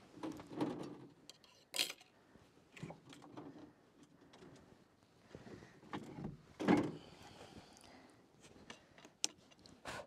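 Wooden rabbit hutch's wire-mesh door being handled and opened: scattered clicks and knocks of the latch and wood-and-wire frame, with rustling as a hand reaches inside. The loudest knock comes about two-thirds of the way through.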